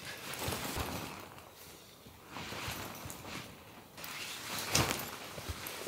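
Nylon fly of a Hilleberg Niak tent rustling while its poles are pushed through the sleeves and the tent is raised, with scattered light clicks and knocks from the poles; the handling gets louder near the end.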